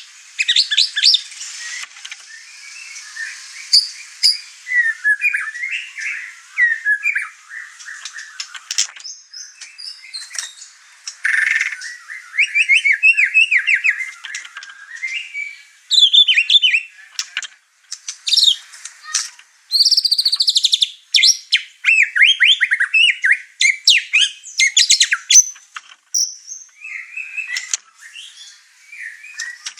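White-rumped shama (murai batu) singing a rapid, varied song of whistles, chirps and trills, running through its repertoire in an over-excited state.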